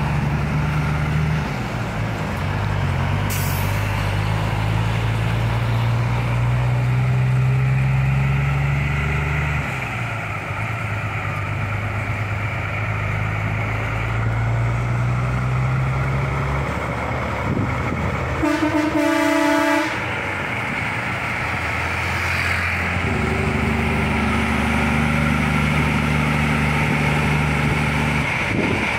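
Semi-truck diesel engines running under load on a climb, the engine note shifting in steps several times. A truck air horn sounds once for about a second and a half, a little past the middle.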